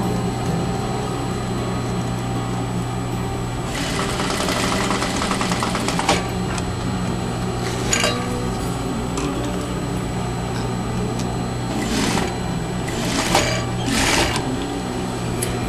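Sewing machine running with a steady low motor hum, with louder bursts of stitching: a longer run about four seconds in and shorter ones later, around eight, twelve and fourteen seconds.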